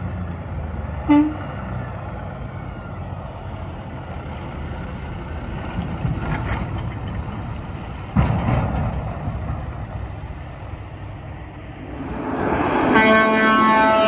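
Diesel engine of a Kenworth T880 roll-off truck running as it approaches and turns, with a short sharp blip about a second in. Near the end a Peterbilt 367 dump truck's twin Hadley air horns sound one long, loud blast as it passes.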